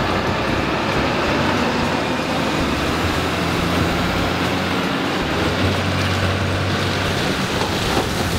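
Ram 3500 pickup truck pulling a loaded boat trailer slowly up a ramp: steady engine and road noise.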